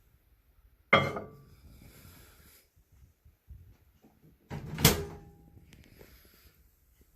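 Two loud clunks about four seconds apart, each with a brief ringing tail, like a door or drawer being shut.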